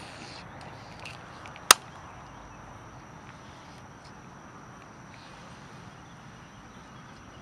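A single sharp click from the fishing reel a little under two seconds in, as it is engaged after the cast. Under it is a faint steady background with a thin, high, constant tone.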